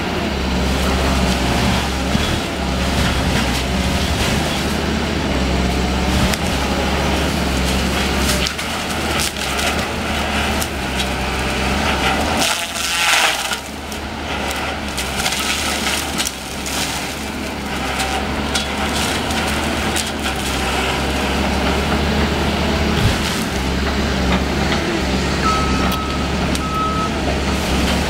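A CAT 315D excavator's diesel engine runs steadily while its hydraulic 38 ECO disc mulcher head shreds brush and saplings. Wood cracks and splinters constantly, with a louder grinding burst about halfway through.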